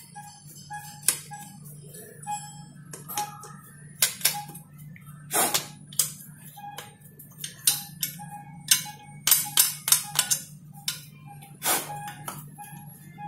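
Background music with a short high note repeating about twice a second, over irregular clicks, knocks and scraping from hand tools worked against a chainsaw's housing.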